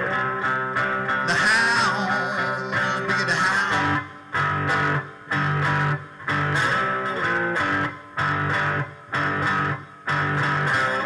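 Three-string fretless cigar box guitar playing an instrumental blues break: gliding, sliding notes at first, then from about four seconds in a riff broken into short chunks with brief silent gaps between them, before it plays on continuously near the end.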